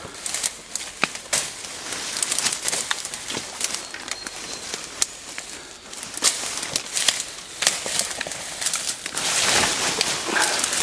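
Leaves rustling and twigs cracking as people push on foot through dense undergrowth, in many short sharp crackles. Near the end the leaves brush close against the microphone and the rustling is loudest.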